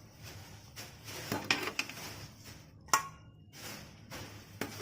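Kitchen utensils and dishes knocking and clinking as steamed plantain pieces are moved from the steamer into a bowl: a few light knocks, the sharpest about three seconds in.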